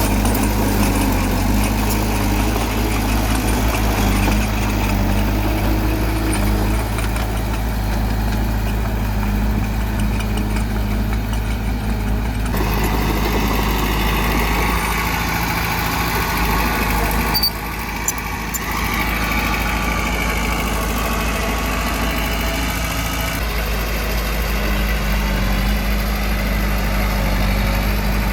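Earthmoving machine's engine running steadily, with a brief dip in level about two-thirds of the way through.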